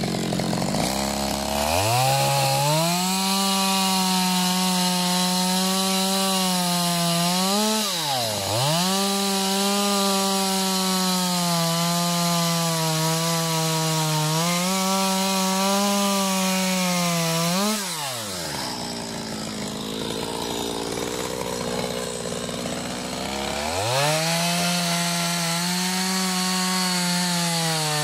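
Small Stihl chainsaw running at high speed as it cuts horizontally along a log, ripping with the grain to take off a slab. Its pitch dips briefly twice. About two-thirds of the way through it drops off high speed for several seconds, then revs back up and keeps cutting.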